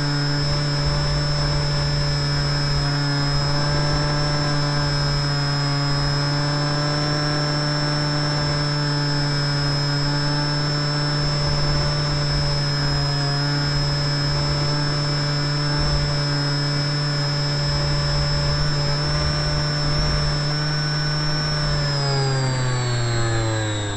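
Onboard sound of a canard model plane in flight: its motor and propeller run at a steady high whine, with wind rumbling on the microphone. About two seconds before the end the pitch starts falling as the throttle is cut back for landing.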